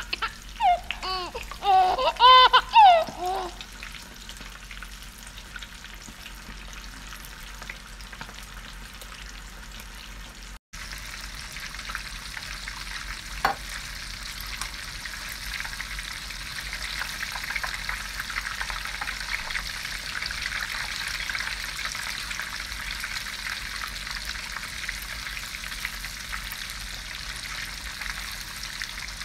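Lumpia deep-frying in a pot of hot oil, a steady sizzling and bubbling that grows louder in the second half. A voice is heard briefly at the start, and there is a single knock about thirteen seconds in.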